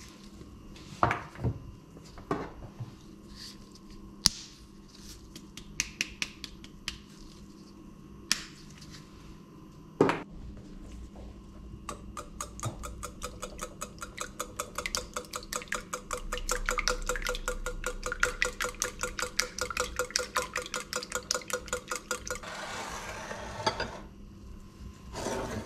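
Scattered clicks and knocks, one loud knock about ten seconds in. Then a wire whisk beats eggs in a ceramic bowl: fast, even clinking of metal on the bowl for about ten seconds, ending in a brief softer swishing.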